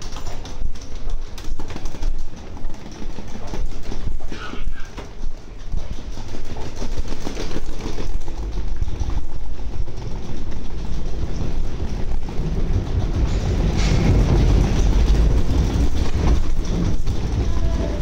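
Subway station noise with footsteps and scattered clatter, then the low rumble of a subway train building from about halfway through and loudest a few seconds before the end.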